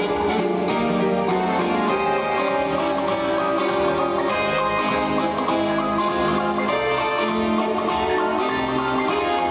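Quickstep ballroom dance music with guitar and a steady beat.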